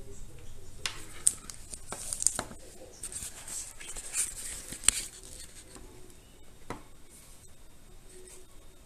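Hands handling a small plastic action camera on a wooden table: rustling with a few sharp clicks and knocks, the loudest about five seconds in.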